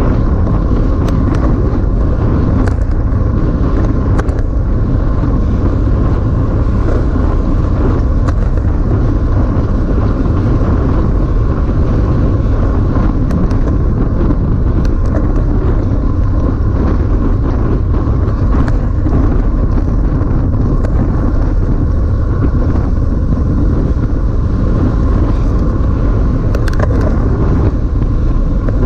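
Wind buffeting the microphone of a camera on a road bike riding at race speed: a loud, steady low rumble with a few faint clicks.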